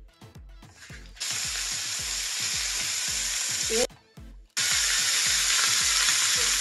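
Marinated sardines shallow-frying in hot oil in a pan: a loud, steady sizzle that starts about a second in, breaks off briefly near the middle and resumes louder. Background music with a steady beat runs underneath.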